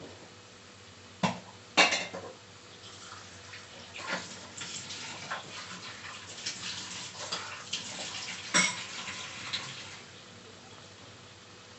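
A wooden spatula knocking and scraping against a saucepan of okra and tomatoes: two sharp knocks early, then a few seconds of irregular clatter with one loud knock, settling down near the end.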